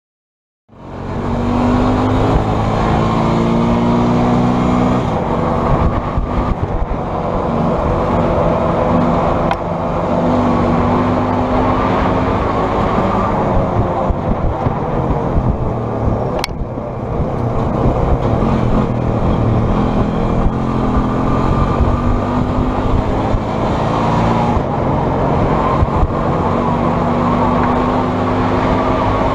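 Engine of a homemade tilting trike running as it drives, its pitch rising and falling with the throttle over a steady rushing noise. It starts about a second in, and there is one sharp click about sixteen seconds in.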